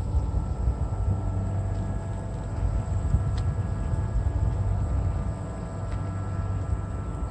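A steady low rumble with a continuous hum of several fixed tones, like a running motor or engine.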